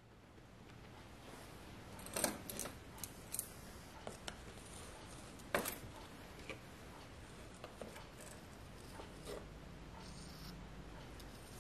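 Small metal measuring spoons on a ring clinking and scraping as blue colorant powder is scooped from a plastic jar: a scattering of light clicks, the sharpest about two seconds and five and a half seconds in.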